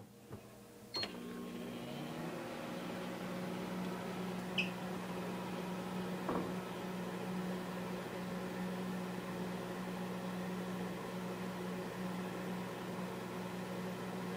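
Microwave oven started with a click about a second in, then running with a steady hum, heating gobstoppers until they melt.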